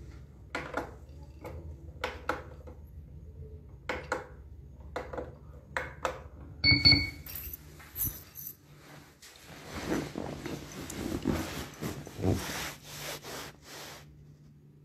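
Phone handling noise: scattered taps, rubs and clicks as the phone is moved about in the hand, with a stretch of rustling. About seven seconds in there is a short high tone.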